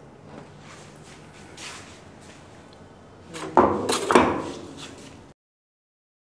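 Heavy steel shear tool being set down on the steel loading platform of a universal testing machine: faint handling and scraping, then two loud metal clanks about half a second apart, before the sound cuts off suddenly.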